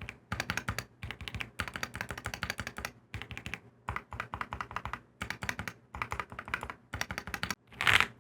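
Typing on a Keychron Q6 Max full-size mechanical keyboard with Gateron Red Pro linear switches: rapid keystrokes in short runs with brief pauses. A louder, scratchier sound starts near the end.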